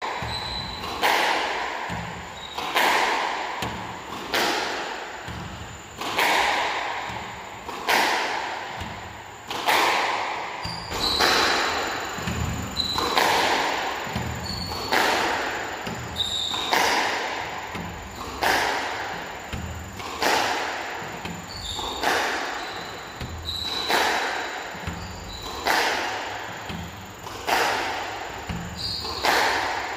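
Squash ball struck with a racket in repeated drive practice: a sharp hit about every 1.7 seconds, each echoing in the court.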